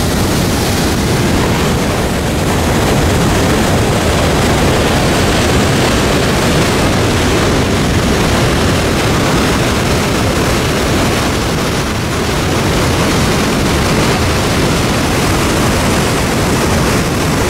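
Niagara Falls: the loud, steady rush of the falling water.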